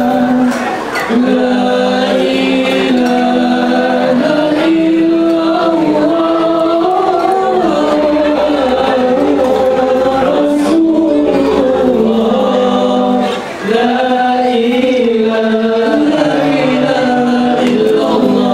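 Group of male voices singing together into microphones in long, drawn-out phrases, with several voices holding different notes at once and no drumming heard. The singing breaks off briefly about a second in and again about two-thirds of the way through.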